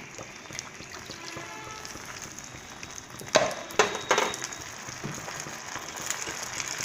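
Vegetables and poppy-seed paste sizzling steadily in an oiled frying pan, with three knocks of a utensil against the pan or bowl a little past halfway.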